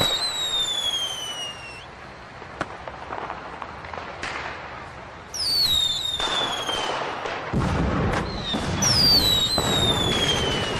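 Fireworks: three whistling shells, each whistle falling in pitch, with sharp cracks and steady crackling throughout. A low rumble of bursts builds in the second half.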